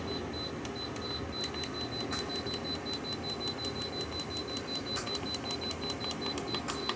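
LG 6000 BTU window air conditioner's fan running steadily, with a thin high whine and irregular light ticking that the owner puts down to debris by the fan, which he calls normal.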